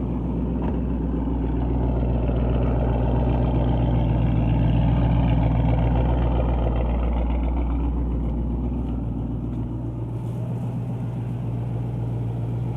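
2012 Mustang GT's 5.0 Coyote V8 running, with a knocking that the owner places in the bottom end and suspects might be a rod knock. The engine note swells slightly partway through and eases off again.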